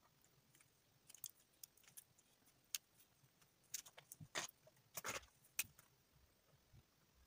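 Felt-tip markers being handled on a desk: scattered light clicks and taps, then a cluster of louder clicks and short scrapes about four to five and a half seconds in.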